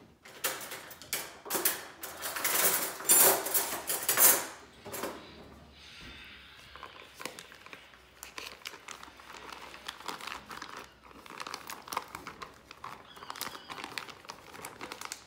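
Plastic pack of grated cassava crinkling loudly as it is squeezed and emptied into a bowl during the first few seconds. After that comes a run of softer clicks and scrapes as a spoon scrapes the last of the cassava out of the bag.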